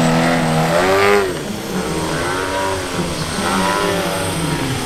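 Large radio-controlled Pitts-style aerobatic biplane's engine and propeller in flight. The pitch rises through a low pass and pull-up, drops sharply just after a second in, then keeps rising and falling with the throttle.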